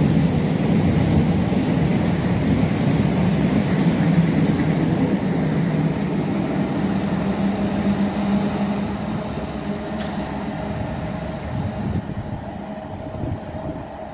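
Container freight train of empty flat wagons rolling past on the rails: a steady rumble with a low hum that slowly fades away.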